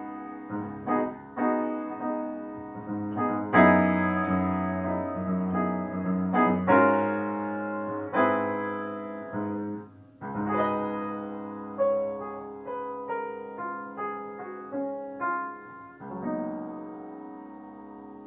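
Background piano music: single notes and chords struck and left to ring, with a short break about ten seconds in.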